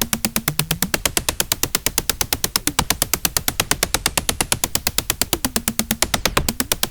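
Eurorack square-oscillator noise module (a Jupiter Storm-style design) producing a harsh, rapidly pulsing electronic noise, about eight sharp clicks a second. A low tone bends in pitch briefly near the start and again near the end.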